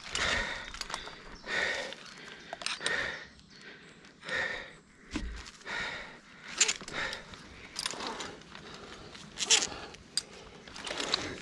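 A rope climber's heavy, labouring breath, one loud breath about every second and a half, from the hard effort of a frog-system ascent. A few sharp metallic clinks of climbing hardware come in between.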